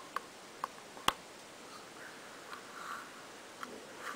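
Quiet scratching and a few sharp ticks from a hand burin cutting into a metal medal, with one sharp click about a second in. Faint rubbing and small taps follow as the piece is handled.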